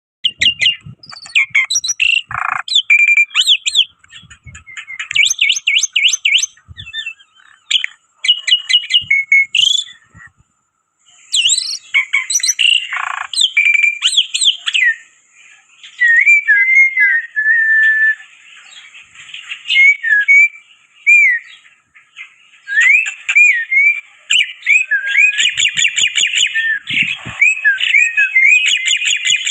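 Black-winged myna (jalak putih) singing continuously and vigorously: a varied run of sharp whistles, fast repeated chattering notes and long gliding whistled phrases, growing denser near the end.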